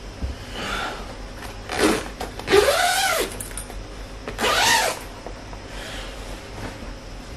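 A man stretching as he wakes, giving two drawn-out vocal groans or yawns whose pitch rises and then falls, the first about two and a half seconds in and the second near the middle.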